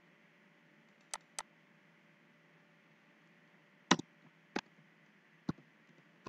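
Computer mouse and keyboard clicks over a faint steady hiss: a quick pair of light clicks about a second in, then three louder, sharper clicks spaced out through the second half as a word is typed.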